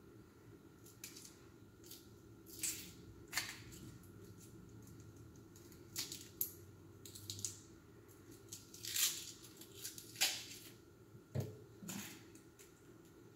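Small kitchen knife peeling the dry outer skin off an onion: irregular short scrapes and crackles, with one duller knock near the end.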